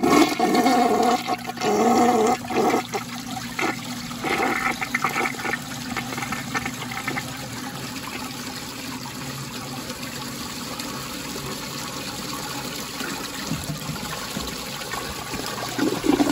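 1986 American Standard Cadet toilet flushing a paper towel away: a loud rush of swirling water for the first few seconds, then a steady hiss of water as the tank and bowl refill.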